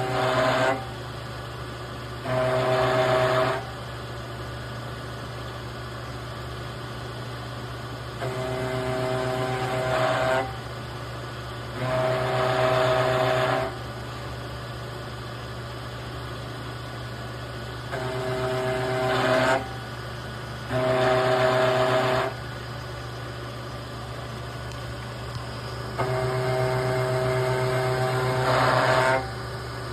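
Milling machine spindle running steadily while an end mill cuts 1/4-inch aluminium angle in repeated hand-fed sweeping passes to form a radius, by conventional (not climb) milling. Each pass rises to a loud singing cutting tone for one to three seconds, about seven passes in pairs, with the spindle idling between them.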